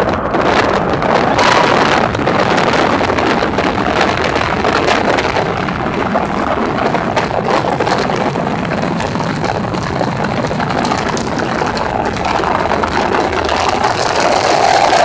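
Antares rocket launch heard from a distance through a phone's microphone: a steady rushing roar with a fine crackle running through it as the rocket climbs.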